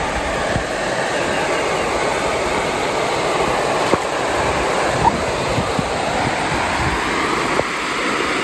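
Steady rushing of water pouring over a low waterfall into the creek, with a few brief splashes in the shallows at the bank.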